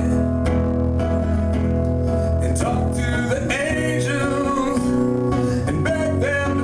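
Live band playing a song, with guitar to the fore and a voice singing over it from about halfway in.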